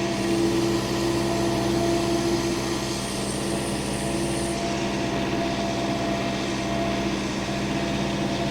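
An engine running steadily at a constant speed, most likely on the machinery used to handle the logs or run the sawmill.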